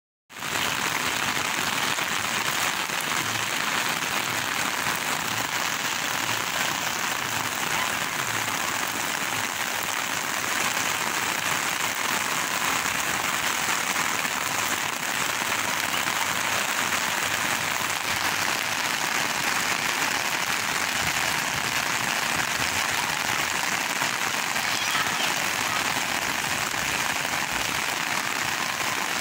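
Rain falling steadily, an even hiss of drops on the surfaces around.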